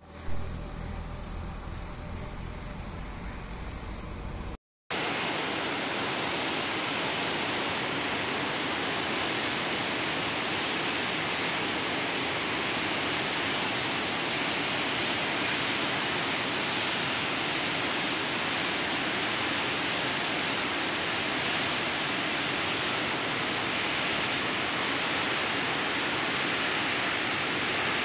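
Floodwater pouring through open dam spillway gates and churning below, a loud, steady rush that starts after a brief cut about five seconds in. The first seconds hold a quieter, lower outdoor noise.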